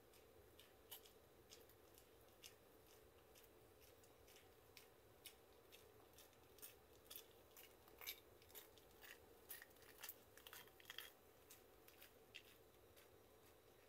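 Near silence broken by faint, irregular small clicks and crackles, a few a second and busiest in the middle.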